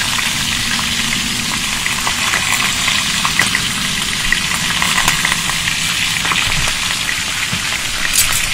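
Pork belly, mushrooms and garlic sizzling on a hot grill pan: a steady frying hiss with scattered small pops and crackles.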